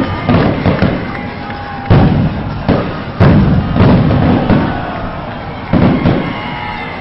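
Aerial fireworks going off: a series of sudden, loud bangs, mostly a second or two apart, some in quick pairs.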